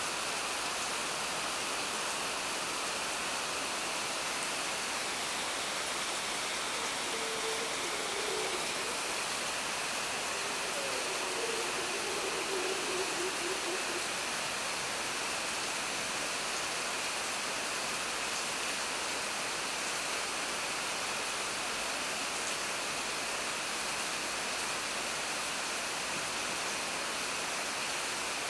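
Steady heavy rain falling on dense rainforest foliage, an even hiss of water on leaves.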